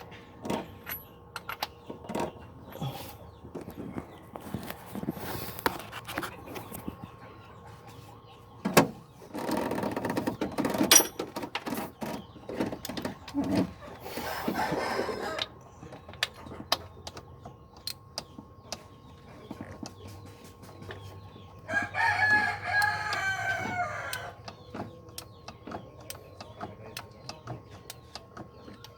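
A rooster crows once, a call of about two seconds near the end. Scattered sharp clicks and knocks run throughout, with two louder noisy stretches in the first half.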